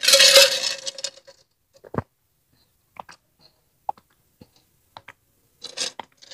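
A loud clink and scrape with a short ring, about a second long, as the metal-lidded drink jar and utensils are handled. Then one knock and a few soft clicks and swallows while she drinks from the jar.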